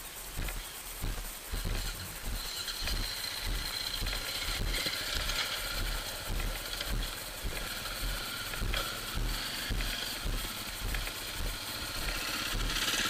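Footsteps on a gravel track, thumping about twice a second. About two seconds in, a steady engine running nearby joins them, a motor vehicle's engine such as a trail bike or quad.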